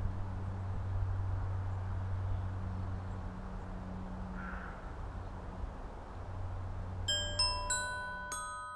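A steady low drone with a soft hiss over it, then, about seven seconds in, a simple melody of bell-like struck notes begins, about five notes each ringing out and fading. The drone cuts off just before the end, leaving only the ringing notes.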